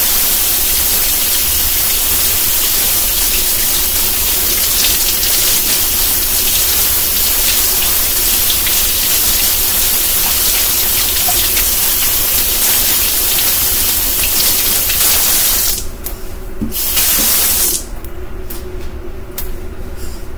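Kitchen tap running into the sink as hands are washed under it, a loud steady hiss of water. About three-quarters of the way through the water shuts off, runs again for a second, then stops, followed by a few light clicks.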